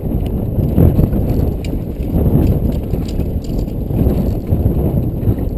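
Small boat on a choppy sea: a loud low rumble with irregular knocks and thuds of waves against the hull.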